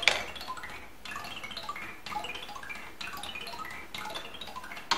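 Wooden ball rolling down a Miura Kiji 'Sazanami' spiral toy, striking its unpainted wooden rods one after another in quick runs of xylophone-like notes, a fresh run about once a second. A sharp wooden knock comes at the start, and another just before the end, after which the notes stop.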